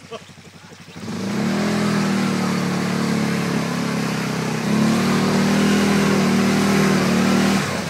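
ATV (quad) engine revving under load as the quad churns through deep mud. The engine note climbs about a second in, eases a little in the middle, rises louder again around five seconds in, and drops away just before the end.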